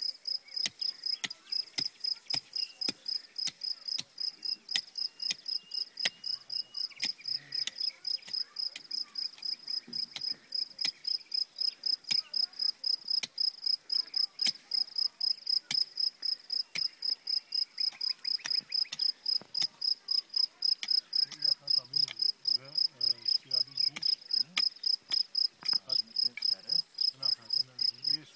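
A cricket chirping steadily: rapid, evenly spaced high-pitched chirps, several a second, without a break.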